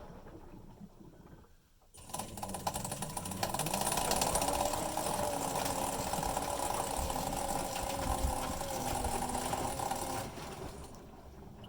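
Maytag Neptune MAH5500 front-loading washer drum turning with a grinding, rattling noise and a motor whine. About two seconds in the drum starts, with the whine rising as it speeds up, then it runs steadily and stops near the end. The grinding persists despite new tub bearings, and its cause is unknown to the owner.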